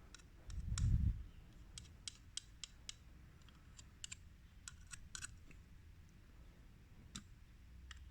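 Scattered small clicks and ticks as CD-mechanism parts are handled, with a low thump about a second in.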